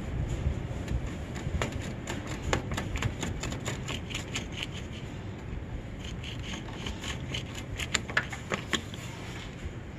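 Hand pruning shears snipping through a plastic air-compressor line to cut out a chafed section: a scatter of small clicks and snips, with a few sharper clicks about eight seconds in, over a steady low rumble.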